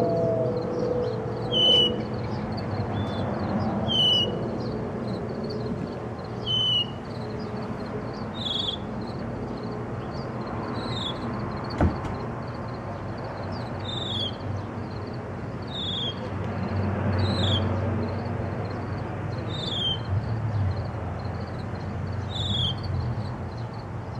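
Northern mockingbird singing: a short clear note repeated every couple of seconds, level in pitch at first and later a quick falling slur, with a faint steady low rumble beneath.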